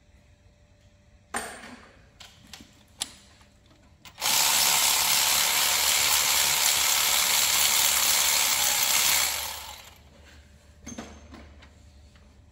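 A few sharp clicks and knocks, then a loud steady hiss lasting about five seconds that fades away.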